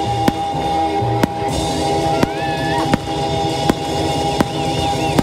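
Music with held chords and a steady beat, one sharp knock about every three-quarters of a second.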